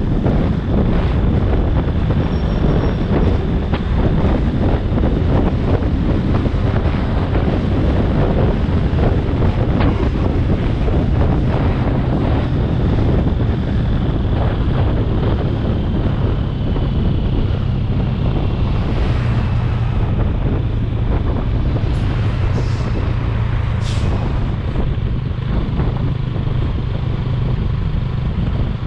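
Motorcycle engine running steadily at cruising speed, with wind and road noise on the camera microphone and a few sharp clicks about three-quarters through.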